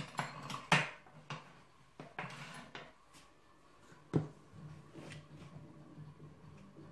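Kitchen handling sounds: a few light knocks and clicks as utensils are set down, then a plastic measuring cup knocking and scraping in a plastic bin of flour. There is one sharp knock about four seconds in, over a faint steady low hum.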